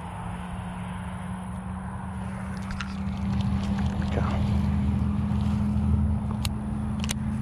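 A motor engine running with a steady low hum that grows louder about three seconds in, with two sharp clicks near the end.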